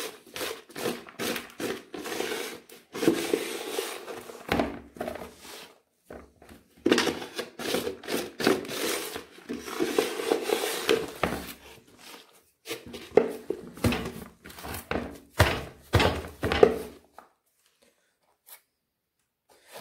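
Dry sifted soil being scooped by hand and poured into a plastic nursery bag, with the bag crinkling and an irregular run of thuds as it is knocked down to settle the soil and drive out air pockets. The handling stops about three seconds before the end.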